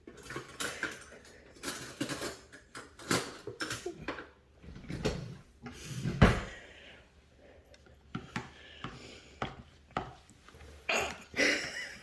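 Kitchen clatter: utensils and containers being handled, irregular clinks and knocks with a heavier thump about six seconds in.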